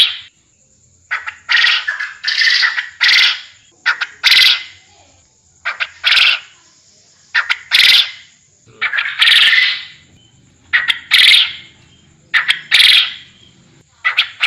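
Quail ('puyuh kebon') calling: short, noisy calls repeated every second or two, some in quick pairs. This is a lure call used to draw in wild quail.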